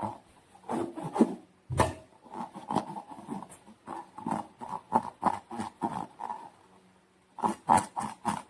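Slime being squeezed and worked by hand: irregular wet clicks and squelches, with a sharp smack about two seconds in.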